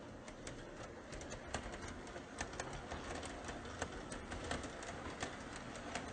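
O-scale two-rail model R-42 subway train running on its track: a steady rumble with frequent sharp clicks, growing a little louder as it comes past.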